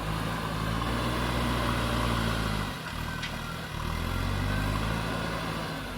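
Diesel engine of a JCB 3DX backhoe loader working under load, swelling up twice with a brief easing about three seconds in and falling off near the end.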